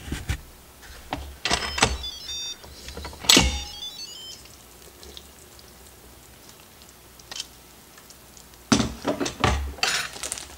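Electric pressure cooker (Instant Pot) lid being unlocked and lifted off: plastic-and-metal clunks as the lid turns and comes free, and a short electronic chime of stepped beeps about two to four seconds in. A clatter of knocks near the end as the lid is set down.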